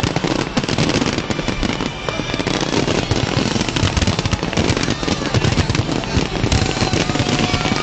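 Fireworks display at full intensity: a dense, continuous barrage of crackling pops and bangs from many shells going off at once.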